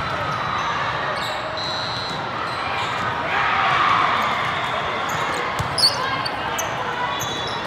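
Volleyball rally in a large hall: sharp ball contacts, the loudest near six seconds in, over a steady din of voices from spectators and neighbouring courts.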